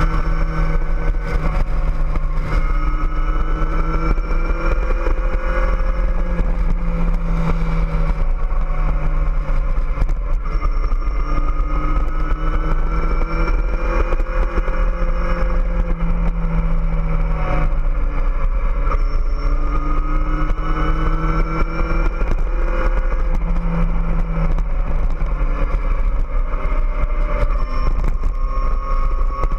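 Kawasaki ZX-14R's 1441 cc inline-four engine running under way, its pitch rising and falling gently in several slow swells with no sharp shifts. Heavy wind rumble on the microphone sits under it throughout.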